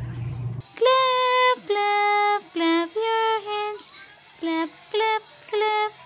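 A simple tune of about a dozen separate held notes at a few different pitches, starting about half a second in, some notes bending slightly as they end.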